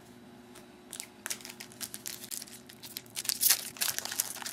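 Foil wrapper of a 2009 Topps UFC Main Event trading card pack being torn open and crinkled: dense crackling starts about a second in and grows loudest near the end.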